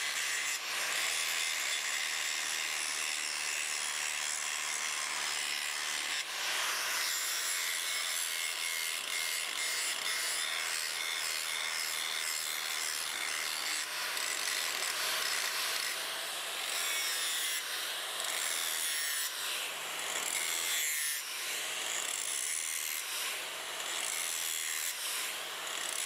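DeWalt angle grinder with a 1/8-inch hard grinding wheel grinding steel plate, a steady gritty rasp with a motor whine, as it strips mill scale and bevels a flame-cut edge. The sound dips briefly a few times as the wheel comes off the steel to be repositioned.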